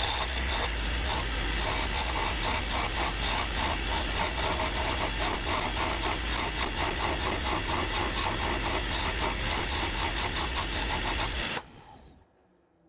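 Wood lathe running with a skew chisel cutting a spinning mahogany blank, tapering the end down. The lathe's steady hum and the cutting noise cut off near the end.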